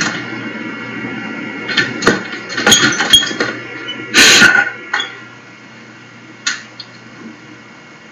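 Scattered clinks and knocks, the loudest a half-second clatter about four seconds in.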